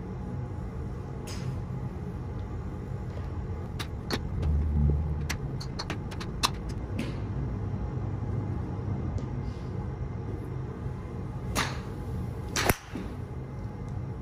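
Royal Collection BBD306V 5-wood striking a golf ball off a driving-range mat: a sharp crack near the end, with a similar crack about a second before it. Fainter sharp clicks come earlier, over a steady low hum.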